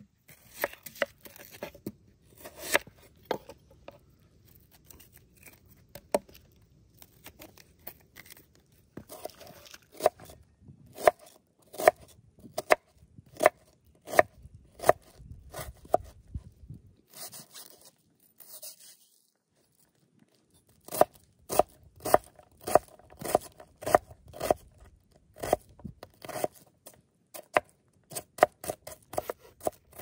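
Chef's knife cutting through a white onion and knocking on a wooden cutting board: separate cuts at first, a pause of a few seconds past the middle, then quick runs of chopping.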